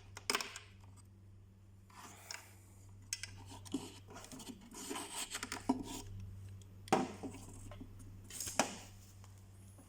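Irregular clicks, scrapes and rubs of hands working inside an opened powered speaker monitor, pulling a cable connector off its circuit board, over a steady low hum.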